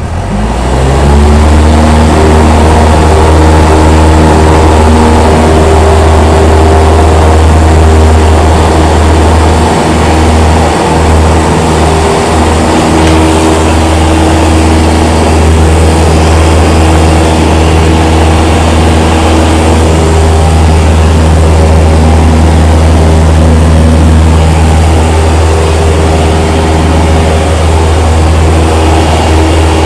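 Cessna 172's engine and propeller heard inside the cabin, the throttle opened about a second in for the takeoff of a touch-and-go and then running steadily at full power through the climb.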